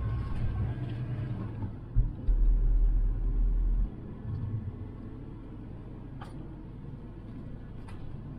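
Motorhome driving, heard from inside the cab: a steady low road and engine rumble that grows heavier for about two seconds midway, then settles.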